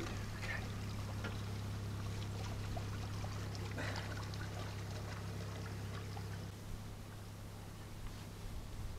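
Canal water sloshing and trickling in a narrowboat's open weed hatch as an arm is worked around the propeller under the surface, with a slightly louder splash about four seconds in. A steady low hum runs underneath and fades about two-thirds of the way through.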